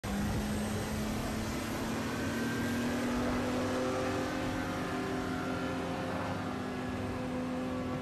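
Engine running steadily: a constant hum with overtones over a wide rushing noise, its pitch creeping up slightly over the first two seconds.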